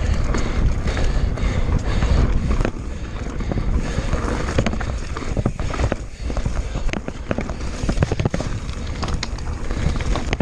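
Mountain bike ridden fast down a loose, rough trail: a constant rumble of wind and tyre noise, with frequent sharp clacks and rattles from the bike and wheels hitting rocks.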